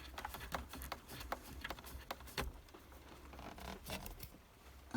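Light irregular clicks and scratches of hands unscrewing a small plastic screw plug and cable clip on the back of a car stereo head unit.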